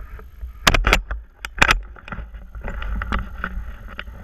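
A few sharp knocks and clicks in the first half, over a steady low rumble of wind on the microphone.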